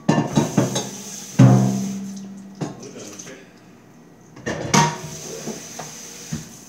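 Kitchen cookware clattering as it is handled. There is a loud metal clang about a second and a half in that rings on briefly, and another burst of knocks and clatter near five seconds.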